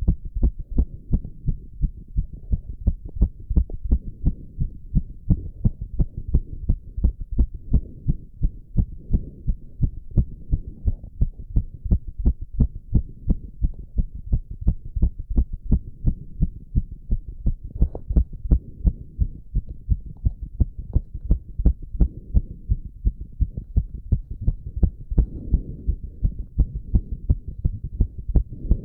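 A man's heartbeat, fast and even, racing from the exertion of squats: a quick regular train of low thumps over a steady low background.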